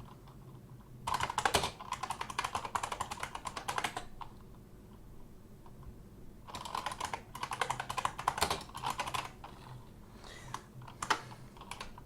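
Typing on a computer keyboard: two runs of rapid keystrokes, each about three seconds long, with a pause between, then a few separate key clicks near the end.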